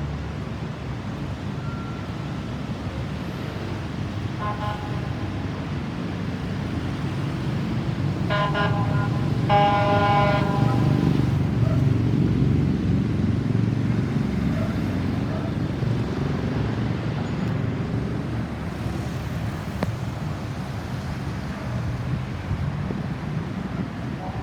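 Road traffic rumbling, swelling as a vehicle passes about ten seconds in. A vehicle horn sounds faintly once, then gives two louder steady blasts at about eight and ten seconds.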